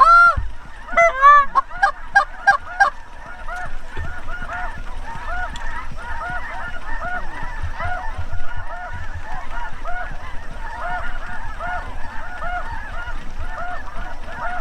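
Geese honking and cackling, lesser Canada geese coming in. A few loud close calls come in the first three seconds, then a steady chorus of many overlapping calls.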